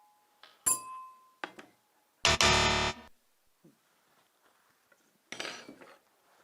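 A sharp clink with a short ringing tone, like glass or metal being struck, then a loud harsh buzzing sound lasting under a second about two seconds in, and a shorter rustling rattle near the end.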